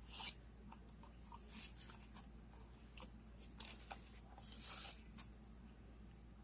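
Thin clear plastic deli cups and lids handled by hand: faint scattered clicks, taps and crinkles, with a longer rustle about two-thirds of the way through.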